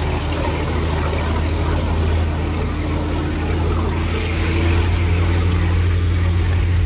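Boat engine running at speed with a steady low drone, over the rush of the churning wake and wind.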